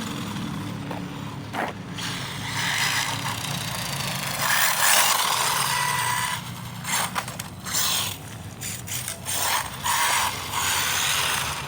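Electric RC car's motor whining and its tape-wrapped tyres scraping across the ground as it drifts, rising and falling with quick bursts of throttle in the second half.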